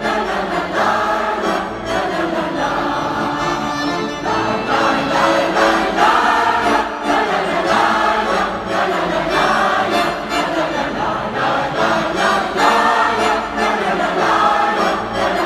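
A choir singing a song, many voices together.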